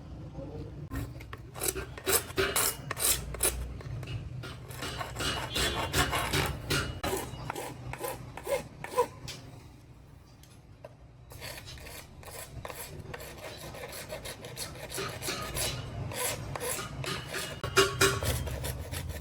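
Repeated rasping strokes of hand abrading on the tail light's plastic, pausing briefly about halfway through, then carrying on.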